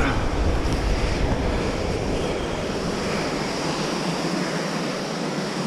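Steady rushing of a waterfall, with low wind rumble on the microphone that drops away about four seconds in.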